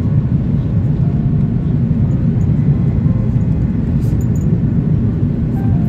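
Steady low rumble inside the cabin of an Airbus A330-300 on approach, heard from a window seat behind the wing. The sound is its Rolls-Royce Trent 772B engines and the airflow over the lowered flaps.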